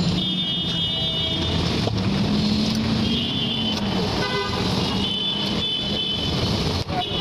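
Busy road traffic: vehicle engines running under a steady background noise, with horns tooting several times in short bursts. A couple of sharp knocks near the end.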